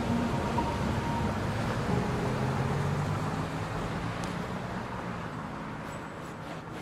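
Steady rushing background noise like road traffic, slowly fading, with faint low music tones lingering beneath it.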